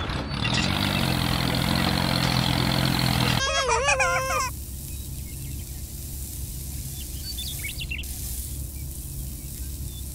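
Sand and gravel pouring with a hiss over a low motor hum that rises briefly, both cutting off suddenly after about three and a half seconds. A short high warbling sound follows, then a steady low hum with a few faint bird chirps.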